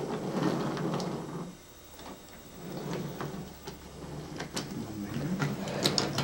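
Wooden toy train rolling along wooden track as it is pushed by hand, its wheels rumbling, pausing briefly about a second and a half in. A few sharp clicks and knocks, the loudest near the end.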